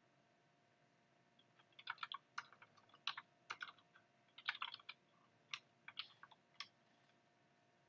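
Typing on a computer keyboard: an uneven run of sharp key clicks starting about two seconds in and stopping shortly before the end.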